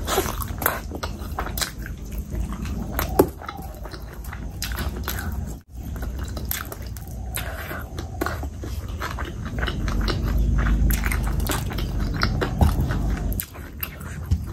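Close-miked mouth sounds of someone eating rice and curry by hand: wet chewing and lip smacks, with many sharp clicks and a brief break about halfway.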